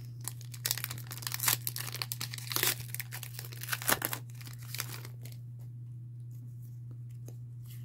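Foil Pokémon booster pack wrapper being torn open and crinkled, the crackling stopping about five seconds in, over a steady low hum.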